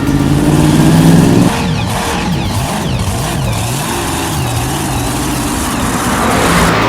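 Vehicle engine sound effect revving, its pitch swinging up and down over and over after a loud steady start, then holding briefly near the end.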